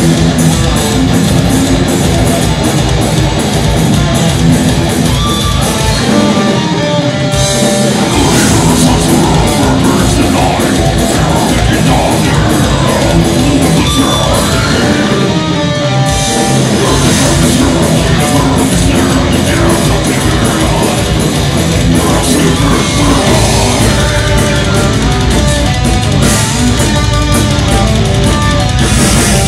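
Live heavy metal band playing loud, with distorted electric guitars, bass and drum kit. The low end thins briefly about six seconds in, then the full band comes back in.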